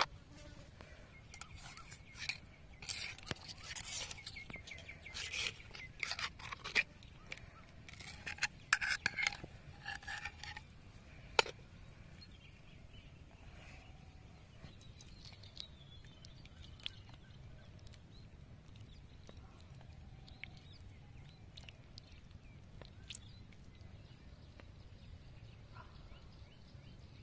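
Irregular clicks, knocks and scrapes of conch shells being handled and knocked against one another and the concrete for about the first ten seconds, with one sharp click just after that. The rest is faint outdoor ambience.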